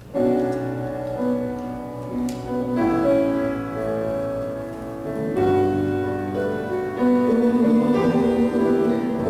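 Live music starts suddenly: an instrumental song introduction of sustained piano chords that change every second or so.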